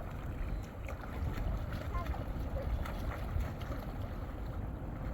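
Wind buffeting the microphone: a steady, unsettled low rumble, with faint scattered ticks over it.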